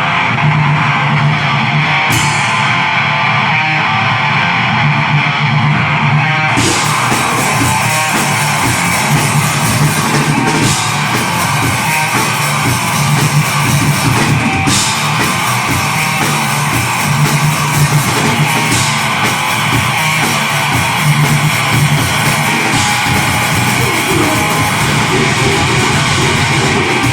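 Deathgrind band playing live, with heavily distorted electric guitar and drums. The opening riff is played with little cymbal, and the full drum kit with cymbals comes in about six and a half seconds in.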